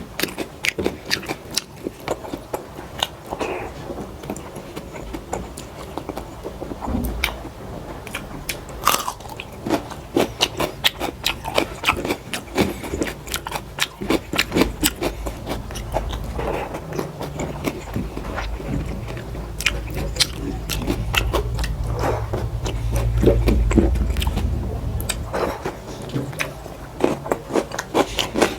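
Close-miked chewing and biting: a person eating big mouthfuls of dal rice with side dishes, heard as a dense run of short mouth clicks. A low rumble swells underneath in the second half.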